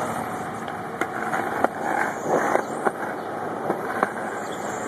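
Steady street vehicle noise with no clear engine note, and a few sharp clicks scattered through.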